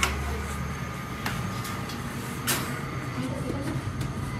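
Steady low mechanical rumble and hum of a bakery's rotating bread oven running, with a couple of light knocks.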